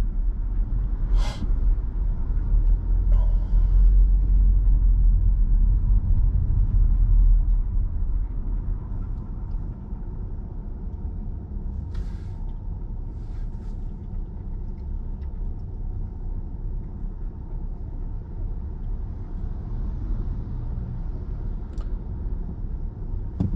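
Car cabin rumble from the engine and road while driving, dropping to a quieter steady idle about eight seconds in as the car sits stopped in traffic. There are two short hisses, one about a second in and one about twelve seconds in.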